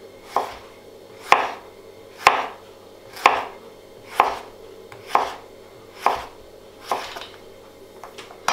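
Chef's knife cutting courgette into julienne strips on a plastic cutting board: about nine even strokes, roughly one a second, each a short slice ending in a knock of the blade on the board.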